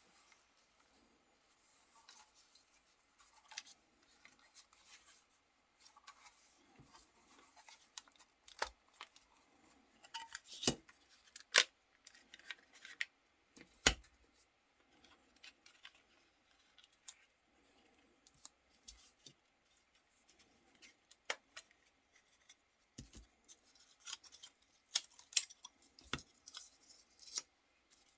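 Irregular small clicks, taps and light scraping of a Nokia 3310 mobile phone's plastic casing and parts being handled and prised apart, with a few sharper snaps around the middle.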